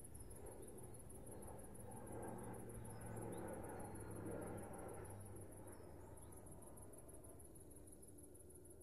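Faint night ambience: crickets chirping in a steady, rapid, high-pitched pulsing trill. Under it are a low hum and a soft swell of noise that rises in the middle and fades away.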